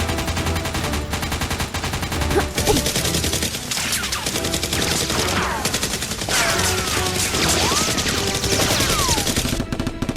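Rapid, continuous automatic gunfire sound effects from a Nerf gun fight, with falling whistle-like sweeps in the second half.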